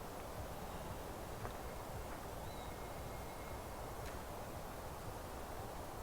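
Steady outdoor ambience of a forest meadow, with a few faint, short bird chirps above it.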